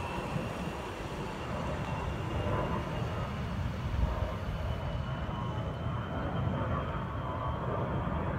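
Two A-10 Thunderbolt II (Warthog) jets flying over, their twin TF34 turbofans heard as a steady rumble with a thin high whine that rises slowly in pitch.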